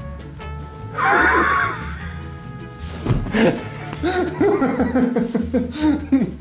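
A man laughing in bursts over background music with a steady bass line. The loudest outburst comes about a second in.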